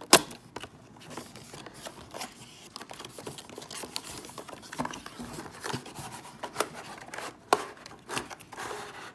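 Cardboard box flap opened and a clear plastic blister tray of die-cast toy cars slid out of the box: plastic and cardboard rustling and crinkling, with scattered sharp clicks and taps, the loudest one just at the start.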